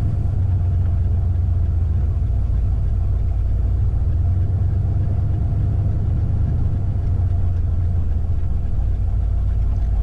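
Cargo van's engine and road noise heard from inside the cab while driving, a steady low rumble.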